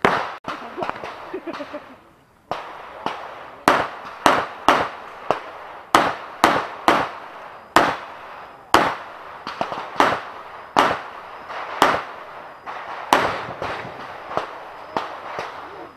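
Handgun firing a fast string of shots during an IPSC practical shooting stage: sharp cracks about half a second apart, some in quick pairs, running on for most of the stretch after a single shot at the start.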